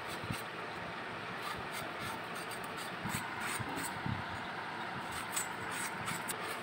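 Green plantain being peeled and cut against a boti blade: faint scraping clicks and a few soft knocks over a steady background hiss.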